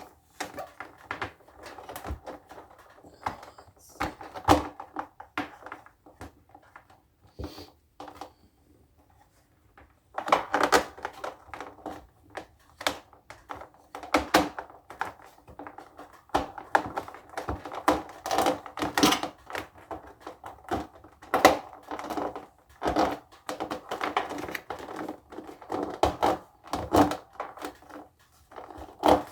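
Computer power cable being handled and tucked into a cable organizer: irregular clicks, knocks and rustling, with a quieter pause about eight to ten seconds in.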